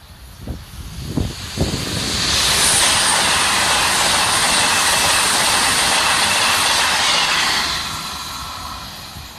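A train passing close by at speed: a few low thumps, then a loud steady rushing of wagons going past that builds about two seconds in and fades away near the end.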